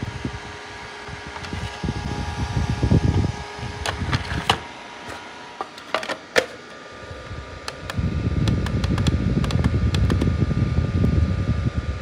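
Small evaporative air cooler's fan running with a steady whine. Around the middle come several sharp plastic clicks as the filter insert and lid are fitted, and a low rumble sits under the fan at the start and again from about two-thirds in.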